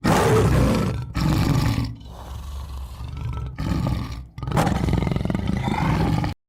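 Tiger roaring and growling in a run of about five rough calls, the middle ones quieter, cutting off abruptly near the end.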